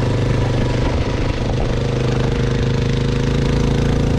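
A vehicle engine running at a steady, even speed, with a steady hiss over it.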